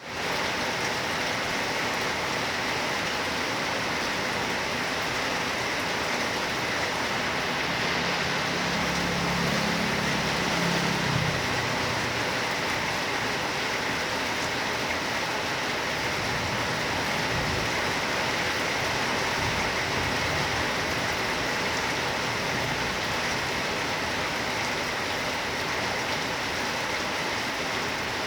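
Heavy rain pouring steadily onto surfaces, with a low rumble for a few seconds about eight seconds in.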